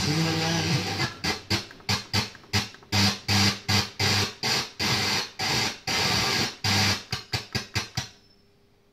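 FM tuner of an Onkyo TX-DS484 receiver being stepped across the band: a station's music at first, then a rapid run of short bursts of broadcast sound and static, chopped off between steps, before it goes quiet near the end. The FM signal is weak here, so stations come and go.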